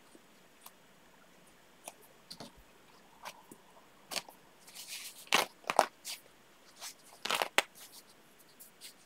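Hands handling and arranging pieces of fabric: scattered small clicks and short rustles, busiest and loudest from about five to eight seconds in.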